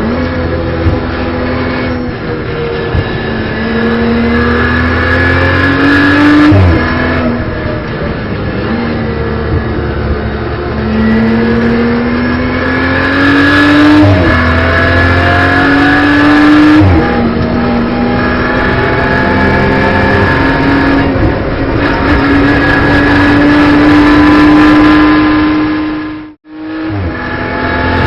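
In-car sound of a BMW M240i Racing Cup's turbocharged straight-six racing under load, its pitch climbing through each gear and dropping sharply at upshifts several times. The sound cuts out for a moment near the end.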